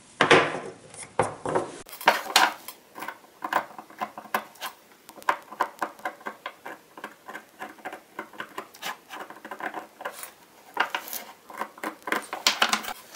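Small knife blade scraping and paring the broken wooden handle (tote) of a hand plane: a quick run of short scratchy strokes, a few a second. There are a few louder knocks in the first two seconds.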